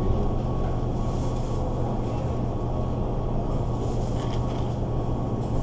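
A steady low mechanical hum with an even background noise over it.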